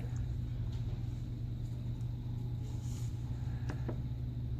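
Steady low hum, with a few light clicks near the end from small parts being handled as the phone is reassembled.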